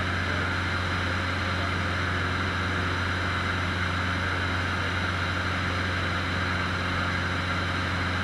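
Cessna 150's Continental O-200 four-cylinder engine and propeller running at a steady, even drone in flight, heard from inside the cabin.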